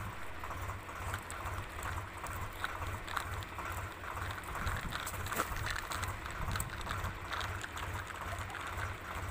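Plastic toy tractor and trailer rolling over dry, cloddy soil: gritty crunching with scattered small clicks as the wheels ride over lumps of earth, over a low pulsing rumble.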